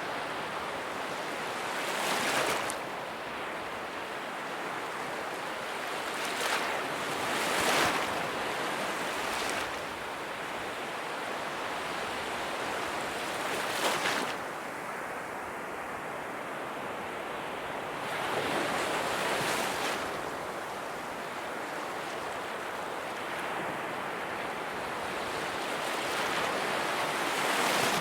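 Small sea waves washing in at the beach, each leaving a fizzing trail of bubbles in the water. Six or so swells rise and fall over a steady hiss.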